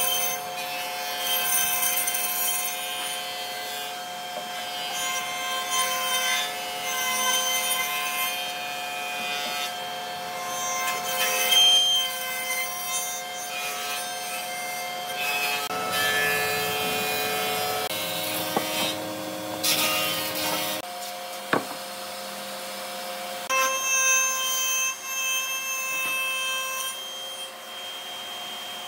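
Spindle moulder (wood shaper) running with a steady whine as pallet-wood boards are fed past its cutter head, the cutting noise swelling and fading with each pass. There is a single sharp click about two-thirds of the way through.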